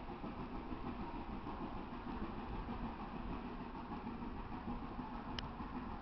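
Steady low rumble of a narrow-gauge steam train pulling away into the distance. A short high chirp sounds near the end.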